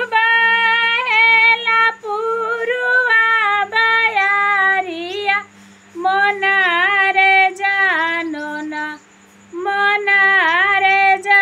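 A woman singing a devi geet, a devotional folk song to Kali Maiya, in long phrases of held, wavering notes, with short breaths between phrases about six and nine seconds in.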